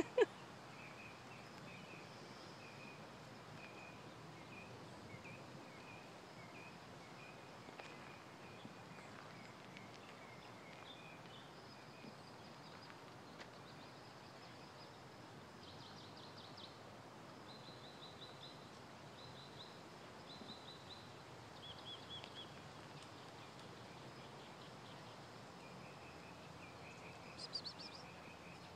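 Faint outdoor background with small birds chirping: a string of short repeated notes for the first several seconds, higher trills and chirps in the middle, and more short notes near the end. A sharp knock sounds right at the start.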